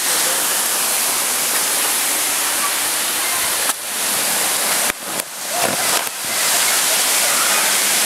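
Waterfall rushing, a loud, even hiss of falling water. Between about four and six seconds in, the sound briefly dips and recovers several times.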